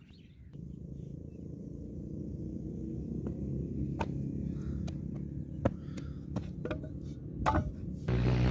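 A steady low engine drone that slowly grows louder, with a few sharp taps and knocks from the brick mould and wet clay being handled. Near the end a much louder engine drone cuts in suddenly.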